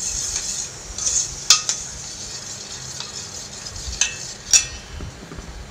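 Metal spoon whisking curd in a stainless steel bowl: a soft wet swishing, with a few sharp clinks of the spoon against the bowl, the clearest about a second and a half in and near four and a half seconds in.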